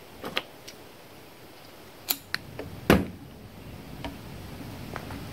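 Handling noise of hands working on a hedge trimmer's plastic fuel tank and fuel lines: a few sharp clicks and light knocks, the loudest a single knock just before three seconds in.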